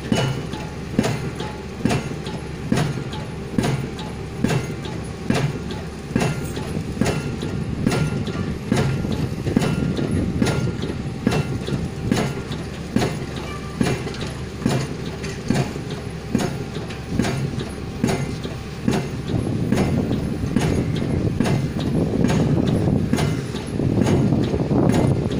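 Pile-driving hammer on a piling rig striking a concrete pile, about one blow a second, over the steady rumble of the rig's engine, which grows louder near the end.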